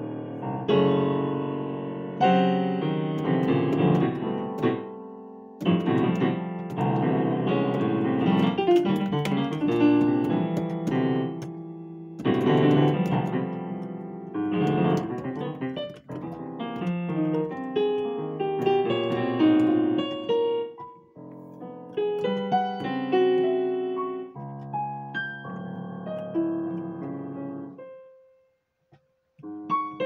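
Digital piano played with both hands: full chords and quick runs, thinning to sparser phrases, then a short pause holding one note near the end.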